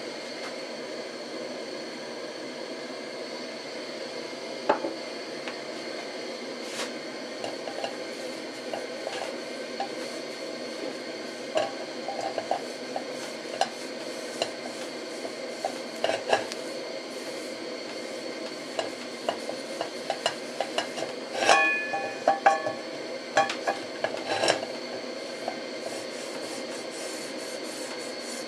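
Aluminium pan on a stove top being wiped with a cloth while hot, spreading the seasoning oil thin: scattered knocks and clicks as the pan shifts on the burner, with a cluster of ringing metal clinks about two-thirds of the way through, over a steady hiss.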